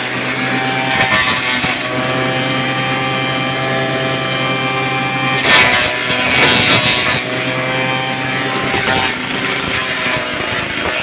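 Small single-cylinder engine driving a chaff cutter, running steadily at constant speed. A brief louder noisy burst about five and a half seconds in.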